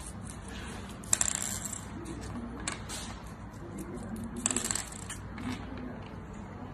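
Small plastic and metal parts of sliding-door rollers (nylon wheels, bolts, nuts and washers) clicking and clattering as they are handled and set down on a wooden board. The sharpest clicks come about one second in, near three seconds and again around four and a half seconds.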